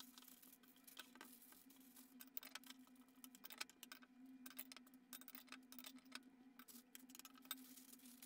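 Faint, quick crackling and ticking of baking paper being handled and folded into parcels, over a low steady hum.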